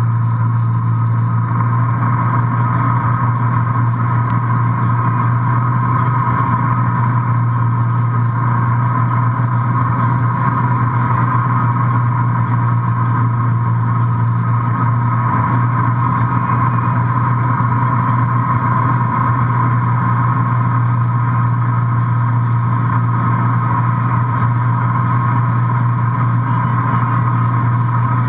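MB Sports B52 wake boat's inboard engine running steadily at surf speed, with the rush of the boat's wake water; one even drone that does not change.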